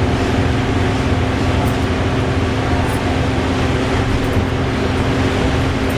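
VDL DB300 bus running, a steady low engine rumble with a steady whirring whine held over it.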